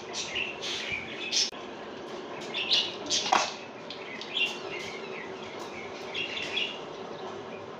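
Small birds chirping in the background: short, high chirps come every second or so at irregular intervals over a steady low hum.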